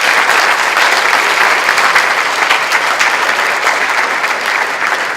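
An audience applauding, a dense steady patter of many hands clapping, easing slightly near the end.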